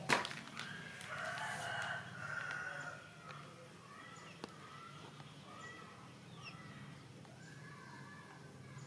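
A rooster crowing once for about two seconds, just after a sharp knock at the start, followed by fainter short calls.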